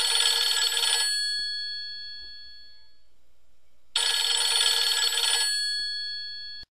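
A desk telephone's bell ringing twice. The first ring is already sounding and stops about a second in, with a fading tail. The second starts about four seconds in, lasts about a second and a half, and the sound cuts off suddenly near the end.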